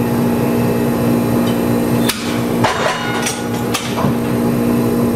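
Gomaco replica Birney streetcar running, heard from inside the car: a steady low motor hum, with a cluster of sharp knocks about two to four seconds in as the wheels run over the street track.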